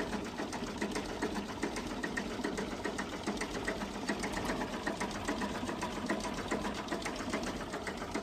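A machine running with a steady, rapid mechanical clatter of even ticks, about four or five a second, which cuts off abruptly at the end.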